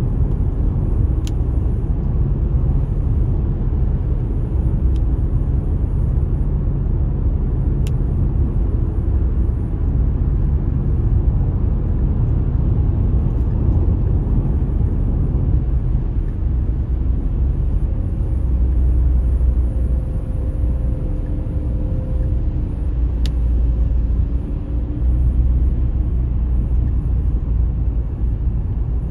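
Steady low rumble of a moving car heard from inside the cabin: tyre and engine noise while driving, with a few faint ticks.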